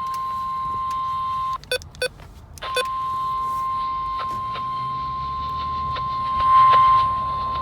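NOAA Weather Radio warning alarm tone: a single steady high beep at about 1050 Hz, signalling that a warning message follows. About a second and a half in it drops out for roughly a second, with a few short clicks, then comes back and swells louder near the end.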